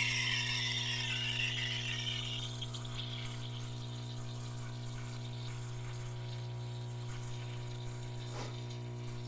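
Profitec Pro 400 espresso machine's vibratory pump humming steadily while it pulls an espresso shot. Over the first few seconds a steam-wand hiss from milk frothing fades away.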